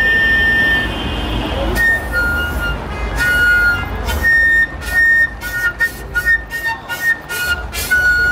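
Flute played upright by the mouth, playing a high melody: long held notes at first, then a run of short, sharply started notes from about halfway through.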